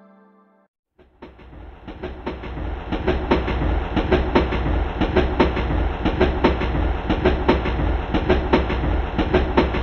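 Train running on rails: the wheels clatter over the rail joints in a dense, uneven stream of clicks over a low rumble. It fades in about a second in and builds over the next two seconds.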